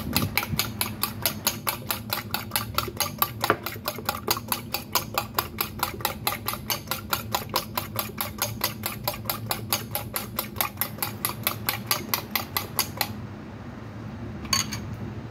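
Fork beating eggs in a ceramic bowl: fast, even clinks of the tines against the bowl, about six a second, stopping about two seconds before the end. One light tap follows near the end.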